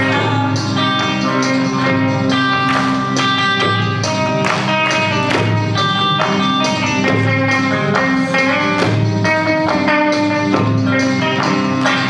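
Kawachi ondo accompaniment playing an instrumental passage between sung verses: an electric guitar melody over a steady drum beat.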